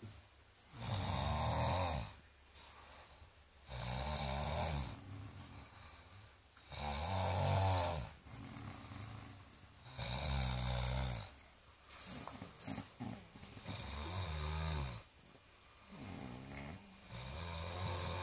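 A sleeping man snoring: about six snores, one every three seconds or so, with quieter gaps between them.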